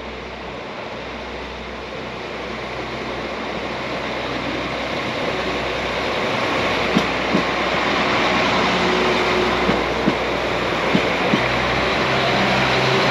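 A passenger train approaching and passing, its running noise and low hum growing steadily louder, with a few sharp clicks from about halfway through, some in pairs.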